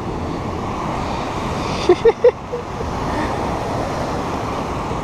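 Steady rumble of ocean surf breaking on lava rock, with wind on the microphone. About two seconds in, three brief loud sounds cut through it.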